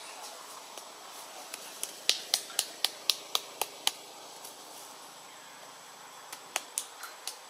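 A quick, even run of sharp, dry clicks, about four a second for two seconds, then a shorter run of five clicks near the end, over a faint steady hiss.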